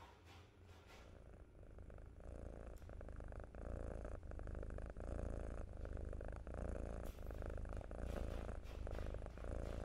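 Tabby kitten purring while being stroked under the chin, growing louder over the first few seconds and then holding steady.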